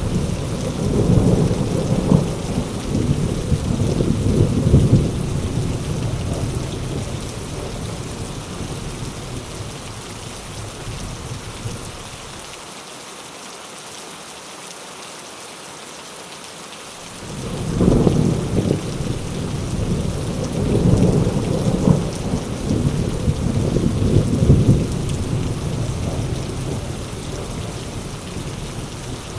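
Heavy rain falling steadily through a thunderstorm, with two long rolls of thunder. The first is rumbling at the start and dies away toward the middle. The second breaks with a sharp crack just past halfway and rolls on for several seconds before easing.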